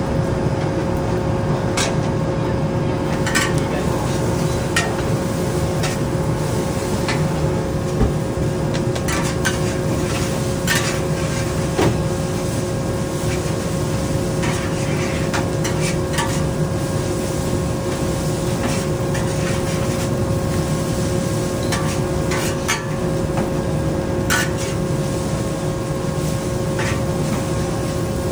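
Hokkien mee noodles stir-frying in a large wok: a metal ladle scrapes and clinks against the wok with scattered sharp clicks, over steady sizzling and a constant background hum.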